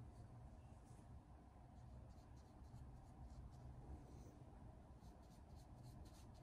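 Near silence with faint, irregular scratchy strokes of a tint brush working bleach into hair at the roots.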